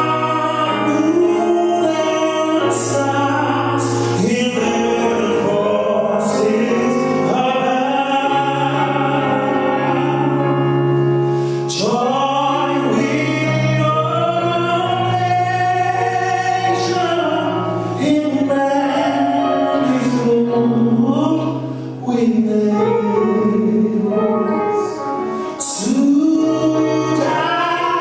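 Gospel choir singing with instrumental accompaniment: long held sung notes over a steady bass line.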